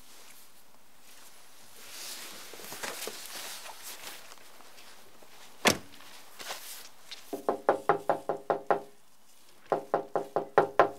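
A car door shut with one sharp bang, then rapid knocking on a glass-paned wooden front door: a quick run of about ten knocks, a short pause, and about six more, each with a slight ringing rattle.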